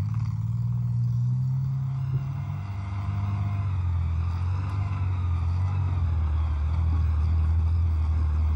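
FV102 Striker tracked armoured vehicle driving over sandy ground, its engine running loud and steady; the engine note settles lower a couple of seconds in.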